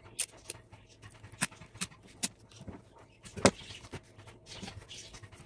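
Folded magazine-paper strips being handled and pressed into a weave on a wooden tabletop: soft paper rustling broken by about six sharp clicks and taps, the loudest about three and a half seconds in.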